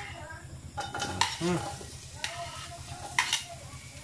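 Garlic and onions sizzling as they are sautéed in hot oil in an aluminium pressure cooker pot. A metal spoon stirs them and clicks and scrapes against the pot every second or so.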